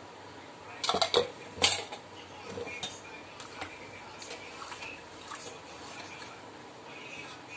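Metal spoon clinking and scraping against a stainless steel pot while stirring spiced mint water: a few loud clanks about a second in, then lighter scattered clinks.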